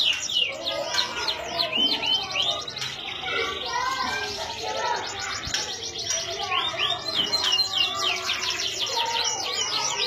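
Domestic canary singing a long, varied song of fast trills and repeated swooping notes.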